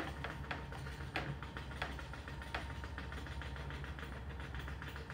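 Whole-body vibration platform machine running: a steady low motor hum with a fine fast rattle, and a few sharp knocks in the first few seconds.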